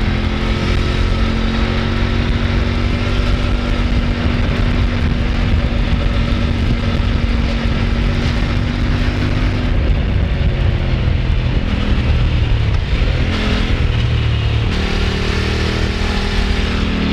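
Kove 800X Pro adventure motorcycle's parallel-twin engine and exhaust under way, heard with wind noise. The engine holds a steady note for the first half, then changes pitch in steps several times in the second half as the bike is ridden through bends.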